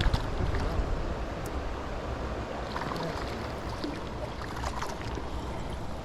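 Steady rush of creek water with wind rumbling on the microphone, and a few faint clicks.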